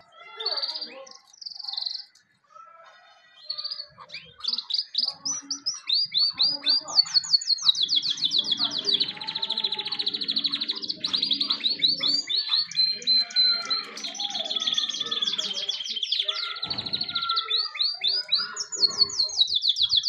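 Domestic canary singing: a few short high phrases at first, then long rapid trills of fast repeated notes, rolling almost without a break from about five seconds in.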